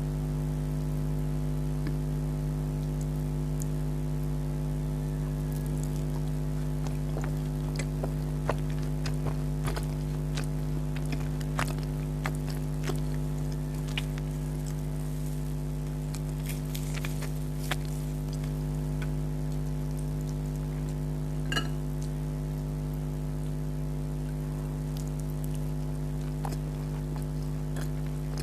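Close-miked mouth sounds of eating: scattered small chewing clicks and smacks, busiest in the middle. A steady low electrical hum runs underneath.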